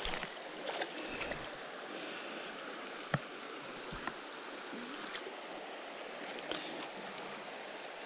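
Shallow creek water running over rocks, a steady rush, with a couple of short sharp knocks about three and four seconds in.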